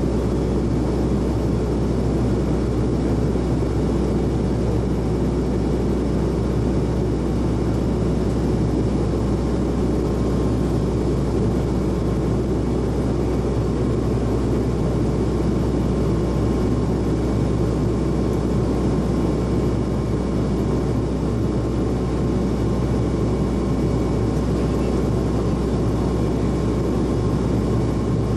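Turboprop airliner's engines and propellers making a steady drone, with a constant low hum and a faint steady whine.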